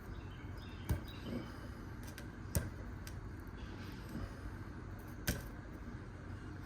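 A few sharp clicks and taps of small parts and wires being handled on a workbench: three distinct clicks, about a second, two and a half and five seconds in, with fainter ticks between, over a steady low hum.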